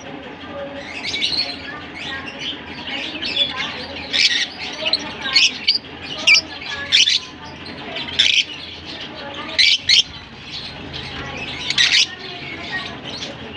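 A flock of caged lovebirds, masked and Fischer's, chattering without pause. A dense mix of chirps and shrill squawks runs throughout, with the loudest sharp calls coming every second or two.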